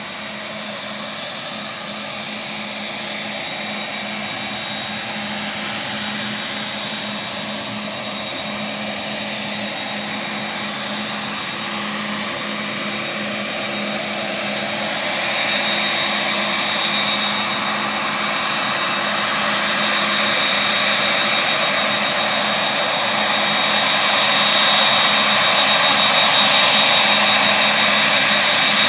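Boeing 787 Dreamliner's twin turbofan engines running, a steady high whine over a broad jet rush that grows gradually louder.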